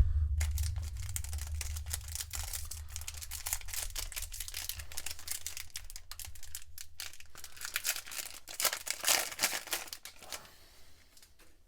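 Foil trading-card pack wrapper crinkling and tearing open, a dense crackle with many small clicks, after a single sharp knock at the very start.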